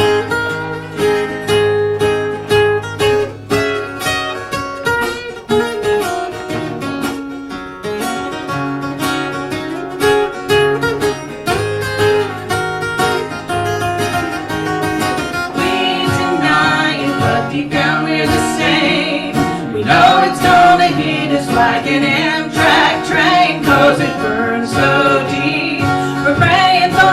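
Country song played live on strummed acoustic guitar, an instrumental stretch without lyrics, growing fuller and louder about sixteen seconds in.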